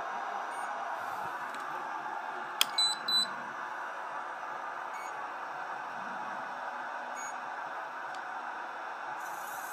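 A sharp click, then two short high-pitched electronic beeps from the radio-control gear, over a steady background hum; a few fainter ticks come later, and a short burst of hiss near the end.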